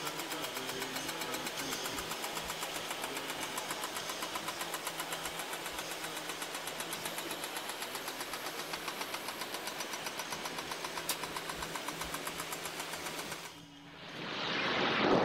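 Diesel engine of a truck-mounted crane running steadily during a lift, with a rapid, even pulse. It cuts out near the end, giving way to rushing wind noise on the microphone.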